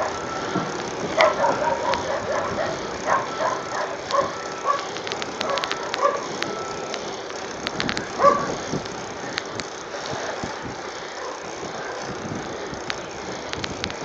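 Mountain bike riding on asphalt, heard from a phone mounted on the bike: steady road and wind noise with light rattling. Short pitched sounds come in an irregular run over the first six seconds, with one more about eight seconds in, and a burst of fast ticking comes about five seconds in.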